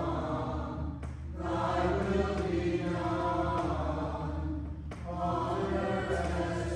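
Choir singing slow, sustained chant, with short breaks for breath about a second in and again about five seconds in.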